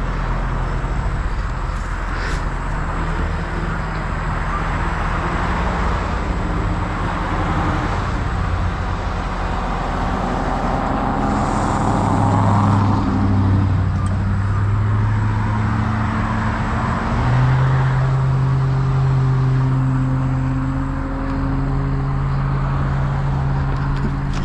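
A heavy truck's diesel engine running with a deep steady drone that shifts pitch a couple of times, while cars pass on the interstate close by with swells of tyre and engine noise.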